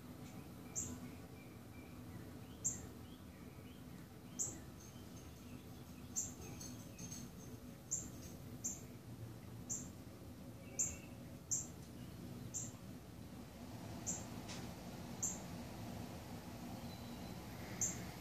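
A 36-inch industrial ceiling fan coasting down: a faint low hum with short, high squeaks every second or two.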